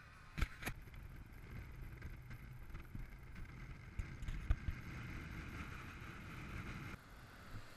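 Motorhome driving on a paved road: a steady low rumble of engine and tyres with wind hiss, and a few sharp knocks.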